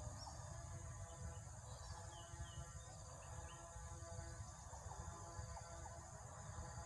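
Faint outdoor ambience: a steady buzz of insects with scattered short bird chirps, over a low, uneven rumble.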